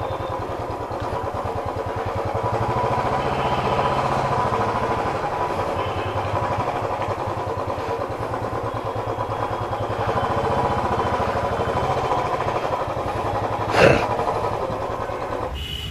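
Royal Enfield motorcycle engine running at low speed with a steady rapid pulse. A single sharp knock comes about fourteen seconds in.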